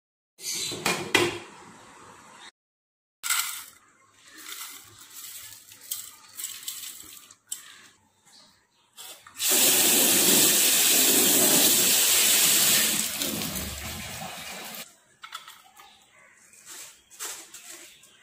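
Kitchen tap running onto a mesh strainer over a steel sink as food is rinsed: a steady rush of water that starts about halfway through, holds for a few seconds and then eases off. Before it, scattered short knocks and handling sounds of cookware.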